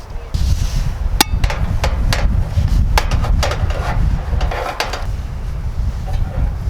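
A series of sharp knocks and clatter, the loudest about a second in and around three seconds, over a steady low rumble that starts just after the beginning.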